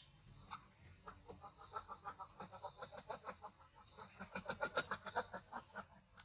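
An animal giving a rapid run of short clucking calls, several a second, that grow louder in the second half and stop shortly before the end, over a steady high insect hiss.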